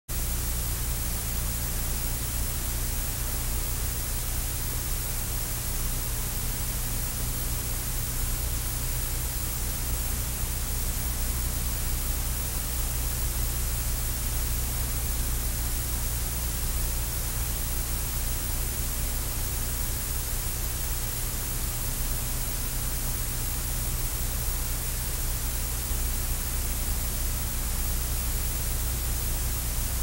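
Steady hiss with a low, even hum underneath, unchanging throughout: the noise floor of an old analogue videotape's audio track.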